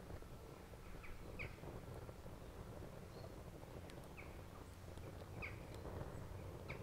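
Sticks burning in a small stainless steel stick stove, the fire crackling with scattered sharp pops over a low steady rumble. Birds chirp briefly a few times.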